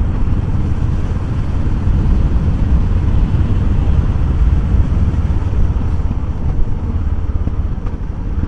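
Motorcycle riding along at road speed: a steady low rumble of engine and rushing air.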